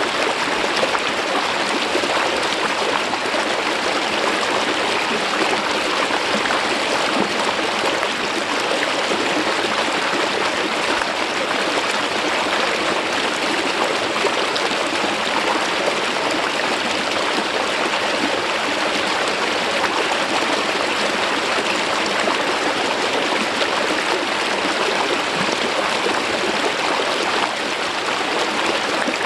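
Mountain stream water flowing smoothly down over a rock face, a steady even rush.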